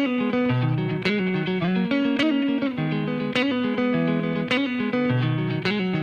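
Background music: a plucked guitar plays a repeating picked pattern, the instrumental intro of a pop song, with no drums yet.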